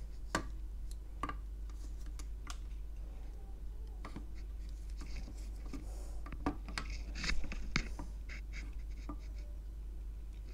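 Scattered small clicks and short scrapes of a large 150 W soldering iron's tip being worked against an aluminium battery post and its solder pad, with a brief cluster of scraping about seven seconds in.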